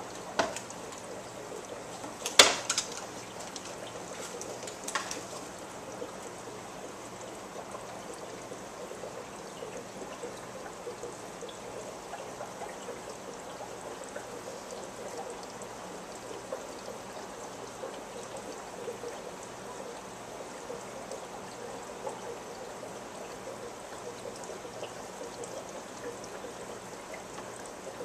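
Aquarium sponge filter running: a steady trickling, bubbling water noise from its air lift. A few sharp clicks sound in the first five seconds, the loudest about two seconds in.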